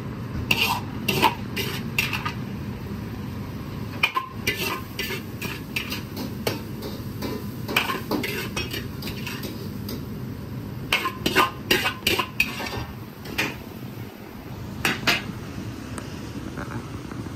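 Metal wok ladle scraping and knocking against a wok as a stir-fry is scooped out and plated, in several bursts of clattering over a steady low rumble.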